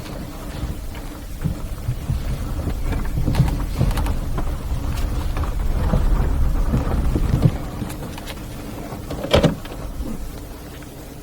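2008 Toyota RAV4 on the move: a dense low rumble of road and tyre noise with scattered clicks and knocks. It builds to its loudest about seven seconds in, then eases off.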